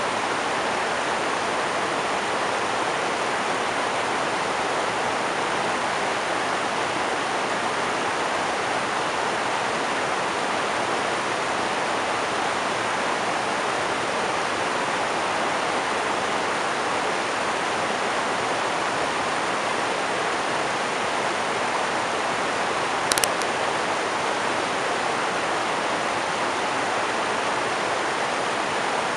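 River rapids rushing over and between rocks, a steady unbroken wash of water noise. A single brief click about three-quarters of the way through.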